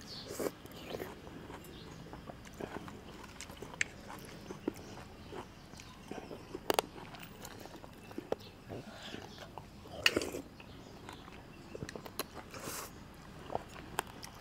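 A person eating frog aom curry: chewing and biting, with scattered short sharp clicks.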